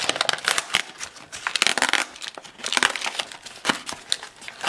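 Crinkling and crackling of a toy's clear plastic blister package as it is handled and pried open. The crackles come irregularly, denser in bursts partway through.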